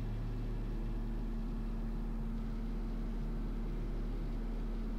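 Steady cabin drone of the Cessna 340A's twin piston engines and propellers on final approach with gear and flaps down: an even low hum with a few steady tones and no change in pitch.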